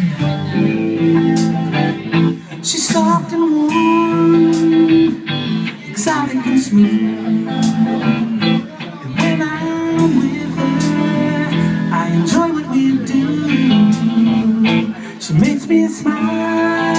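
Blues band playing an instrumental intro: guitar with bending notes over a steady accompaniment, with regular percussive hits.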